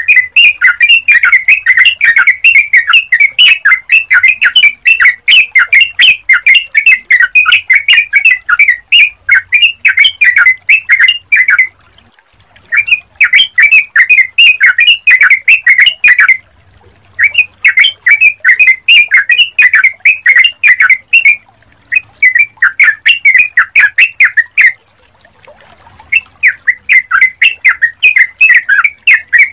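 Yellow-vented bulbul (trucukan) singing: loud runs of rapid, repeated bubbling notes, one long run followed by shorter runs broken by brief pauses.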